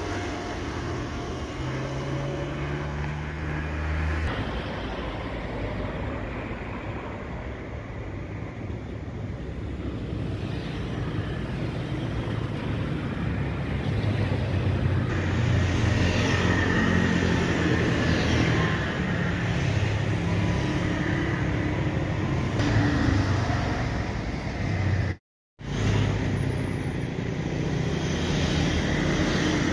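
Jet engines of a Boeing 737-800 running as the airliner taxis onto the runway and begins its takeoff roll, a steady rumble with a high whine that grows louder in the second half, mixed with road-traffic noise. The sound cuts out for a moment near the end.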